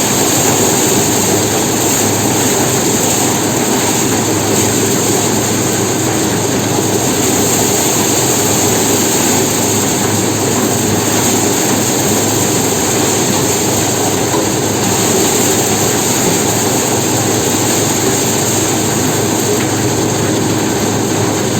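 Engine-driven corn threshing machine running steadily, a loud, even mechanical noise with a constant low hum.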